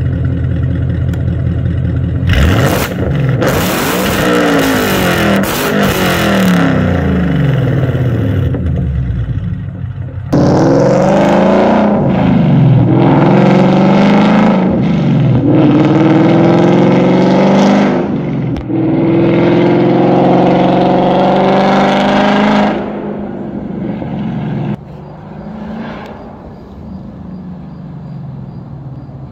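Ford Mustang GT's 5.0 V8 through long-tube headers, high-flow cats, an H-pipe and a Corsa Track axle-back, very loud and aggressive. It is revved in place, rising and falling several times. From about ten seconds in, the car accelerates past, upshifting at about 3000 rpm: four rising pulls, each broken by a gear change, then the sound drops off as the car moves away.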